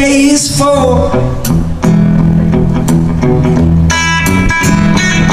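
Live band music: electric guitars play an instrumental passage over low bass notes, after a sung line trails off about half a second in. A bright strummed chord comes in about four seconds in.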